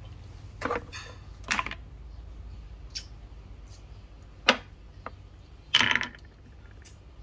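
Wooden Khmer chess pieces knocking down onto a wooden board and into a wooden tray: about six separate sharp clacks, the loudest about four and a half seconds in, with a short clatter of pieces about six seconds in.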